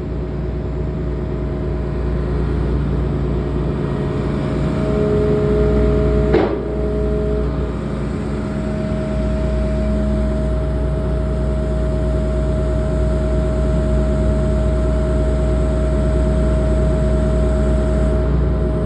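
Hitachi excavator's diesel engine running steadily under a steady whine, with one sharp knock about six seconds in.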